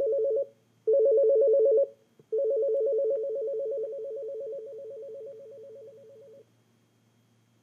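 Panasonic KX-TGM450S base unit's ringer playing its ring at each press of the volume button as the ringer volume is set: a rapid two-tone trill in a short burst, a louder burst, then a longer run that steps down in loudness about every three-quarters of a second before it stops.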